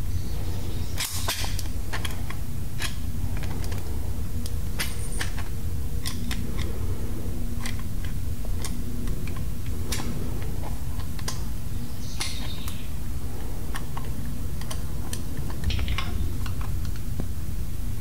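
Scattered light metallic clicks and taps of a screwdriver and small parts against a tractor hydraulic pump as the cable-drive screw and adapter are worked into place, over a steady low hum.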